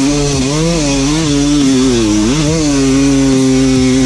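Enduro motorcycle engine pulling up a steep rocky climb, heard onboard from a helmet camera. The engine note dips and recovers a few times as the throttle is worked over the rocks, then holds steady.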